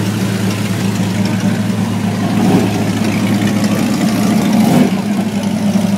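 A car engine idling steadily, a low even hum that holds its pitch throughout.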